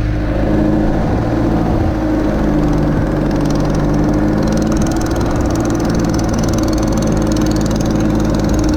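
A fishing boat's engine running steadily, with a slight shift in pitch about two seconds in.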